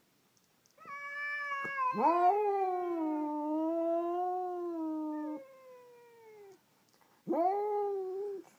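Domestic cats caterwauling at each other through a glass door, the territorial yowling of a standoff. A long, wavering yowl slides up and down and tails off, then a shorter rising yowl comes near the end.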